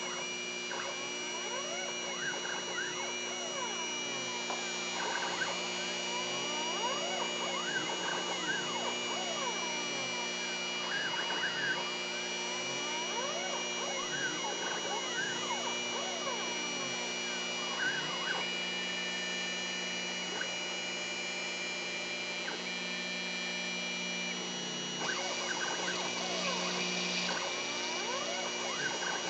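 Stepper motors of a homebuilt three-axis CNC router whining in repeated rising and falling sweeps as the axes speed up and slow down through their moves. The sweeps sit over a steady high-pitched whine.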